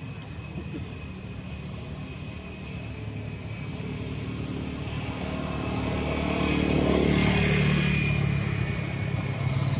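A motor vehicle passing by. Its engine grows steadily louder from about halfway through, is loudest near three-quarters of the way, then eases off a little.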